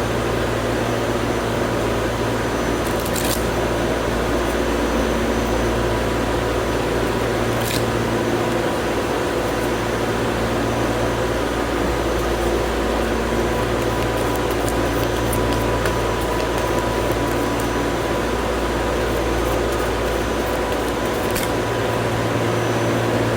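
Steady ventilation hum of an airport's air conditioning, an even rushing noise with a low drone, and a few faint clicks over it.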